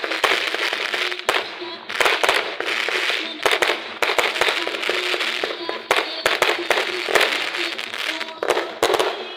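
Aerial fireworks going off: a rapid run of sharp bangs among dense crackling, with louder reports coming in clusters throughout.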